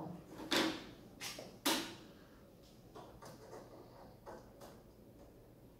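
Sharp clicks and knocks of fiber cables and a converter module being handled and fitted into the front ports of a Cisco Nexus switch, with four louder clicks in the first two seconds and fainter ones after.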